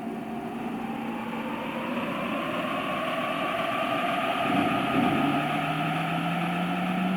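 Sound effect of a JR East E233 series electric train's inverter and traction motors whining as it accelerates: several tones rise slowly and evenly in pitch and grow gradually louder, with a lower tone starting to climb about five seconds in.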